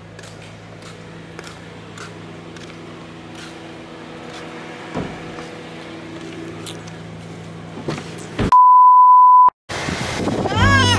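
A steady low vehicle hum with a few faint clicks, cut off about eight and a half seconds in by a single loud electronic beep lasting about a second. Near the end a voice rises and falls over the hum.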